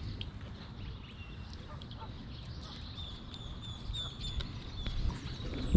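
Birds peeping: short high calls repeated about three times a second for a second or two, over a steady low rumble.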